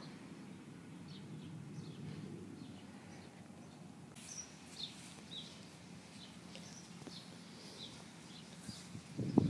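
Small birds chirping, with many short high chirps that come thicker about halfway through, over a low steady outdoor rumble. A brief louder low bump comes just before the end.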